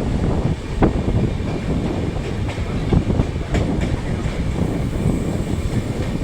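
Passenger train running at speed: a steady rumble of wheels on rails with irregular clacks and knocks as the wheels pass over rail joints.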